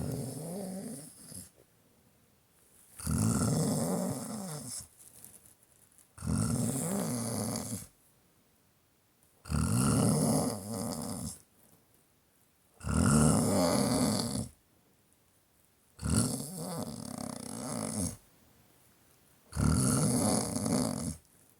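Snoring: a regular series of snores, seven in the stretch, one about every three seconds, each lasting one and a half to two seconds with quiet pauses between.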